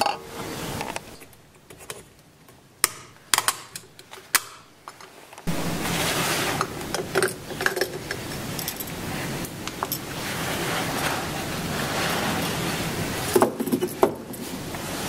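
Small metallic clicks and clinks from a car cooling-system thermostat being handled against its metal housing. A few sharp clicks come in the first half, then scattered clinks over a steady hiss that starts about five seconds in.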